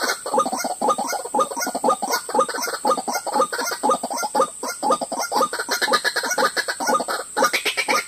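White-breasted waterhens calling: a fast, unbroken run of harsh, clucking 'ruak-ruak' calls, several a second, over a steady high-pitched whine.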